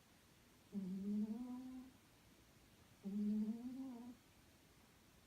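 A cat snoring in its sleep: two long, pitched snores about two seconds apart, each rising slightly in pitch toward its end.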